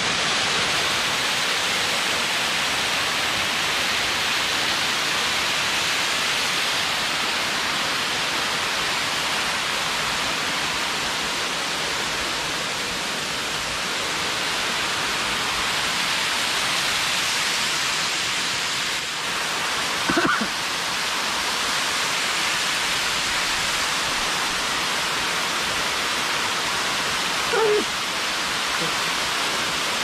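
Steady rush of a waterfall pouring down a rock face onto boulders, heard from close by. Twice in the later part a brief pitched sound rises over it.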